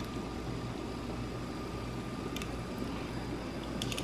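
Steady low kitchen hum with a few faint light clicks of metal tongs as spaghetti is lifted into a skillet, about two and a half seconds in and again near the end.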